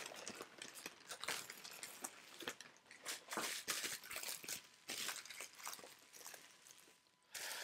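Faint rustling and crinkling of packaging being handled and unwrapped by hand, with scattered small clicks and taps. It falls silent for a moment near the end.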